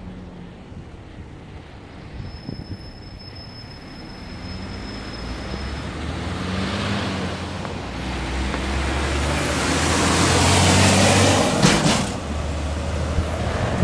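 Heavy dump truck towing a trailer passing close by: its engine and tyre noise build over several seconds to a loud peak, with a short clatter about twelve seconds in as it goes past, then dies back.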